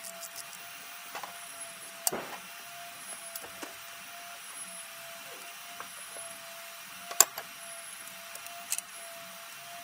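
A few sharp clicks and knocks of parts and tools being handled in a diesel engine bay, the loudest about seven seconds in, over a steady faint hum.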